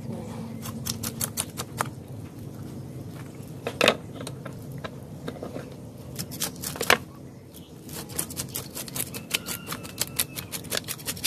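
Scales being scraped off a mirror carp with a serrated blade on a wooden chopping block: a rapid run of rasping scrapes and clicks, with two louder sharp strikes about four and seven seconds in and quicker strokes from about eight seconds on.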